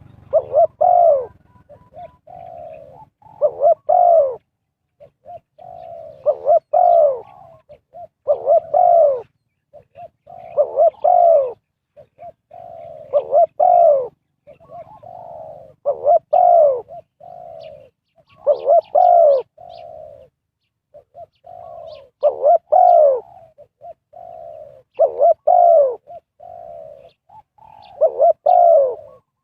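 Spotted dove cooing: the same phrase repeated about every two to three seconds, each a few softer coos building to a loud arched note.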